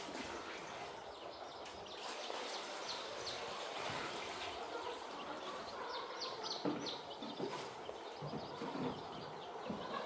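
A flock of young poultry chicks cheeping, a dense bed of many short high chirps, with a few short knocks about six to seven seconds in.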